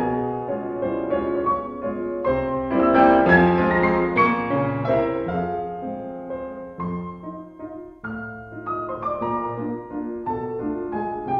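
Background piano music, a slow melody of changing held notes.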